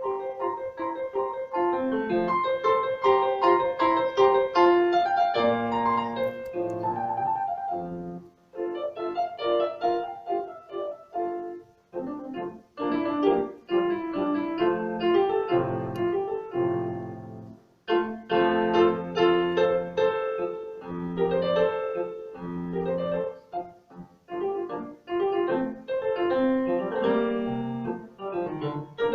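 Piano music: a melody over chords, played in phrases with brief pauses about 8, 12 and 18 seconds in.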